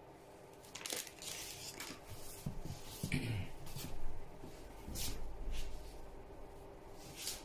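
Handling noises: about half a dozen short scrapes and rustles as metal feeding tongs and a hand move inside a glass vivarium over dry wood-shaving bedding.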